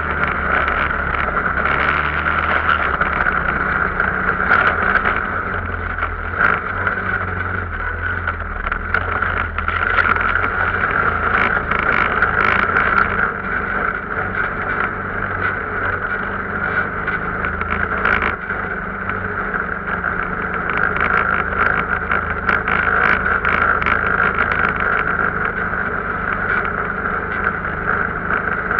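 Arctic Cat off-road vehicle's engine running under way, its pitch shifting a few times, with scattered knocks and rattles over the steady engine sound.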